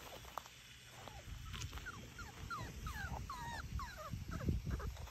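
Four-week-old Labrador puppies whimpering: a quick run of short, high squeaks that bend up and down in pitch, starting about a second and a half in and coming thick and fast through the rest, with a low rumble underneath.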